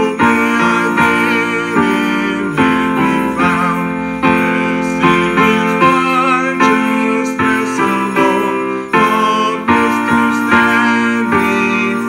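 Piano played at an unhurried pace, chords struck about once or twice a second and left to fade between strikes.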